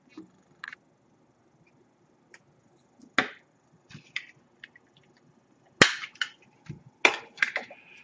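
Sharp plastic clicks and snaps from a small wireless doorbell push-button as its casing is handled and pried open to fit the battery. They come singly and at uneven intervals, with the loudest snaps about six and seven seconds in.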